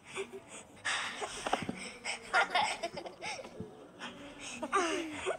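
High-pitched cartoon kitten voices giggling and squealing in short, wavering calls, with a couple of soft knocks.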